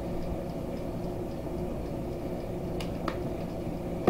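A steady low hum with a few even tones, and two faint light clicks about three seconds in.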